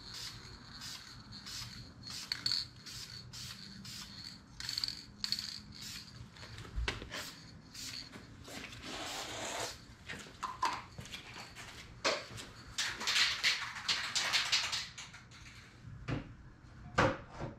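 Light handling sounds from work at a truck grille: a run of soft clicks about twice a second, then scraping and rustling patches, the densest near the end, and a couple of sharper knocks just before it ends.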